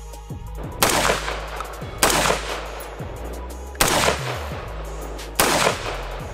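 Troy A4 AR-15-pattern gun fired four times, a second or two between shots, each a loud sharp report with a short echo. Background music with a steady bass beat plays underneath.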